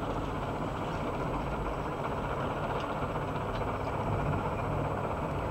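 A steady, low engine rumble with a few faint clicks.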